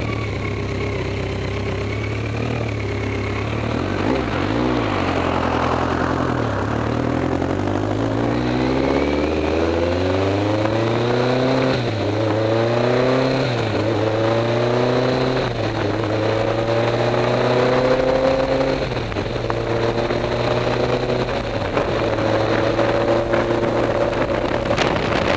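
Motorcycle engine idling, then pulling away and accelerating up through the gears, its pitch rising and dropping back at each of several shifts before settling into a steady cruise near the end.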